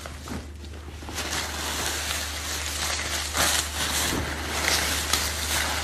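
Paper banknotes rustling and crackling as hands stir through a big heaped pile of cash, louder from about a second in, over a steady low hum.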